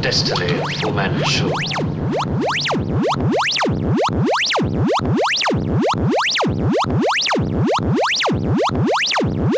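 Analog synthesizer electronic music: a repeating sweep that glides up high and back down in pitch about once a second, over a steady low drone that drops out after about two seconds.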